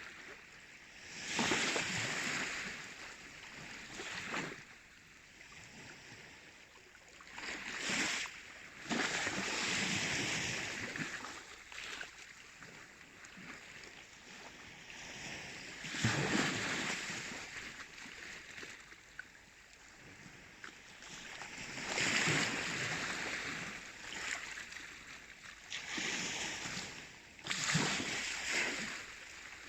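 Baltic Sea waves washing and breaking in irregular surges every few seconds, each swelling and fading over a steady background rush of water.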